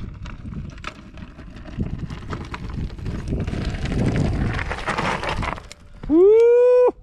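Mountain bike tyres crunching and rattling over loose rock, growing louder as the bike comes down toward the camera. Near the end a loud tone rises in pitch, holds for under a second and cuts off suddenly.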